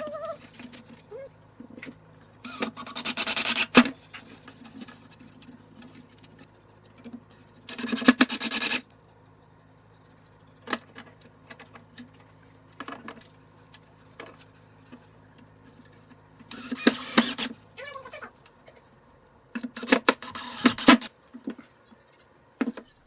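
3D printer printing a PETG part: a steady low hum of its motors and fans, broken by four short, louder rasping bursts of motor noise. The hum stops about three quarters of the way through.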